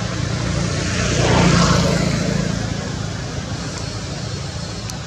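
A steady low motor drone that swells about a second and a half in and then fades a little.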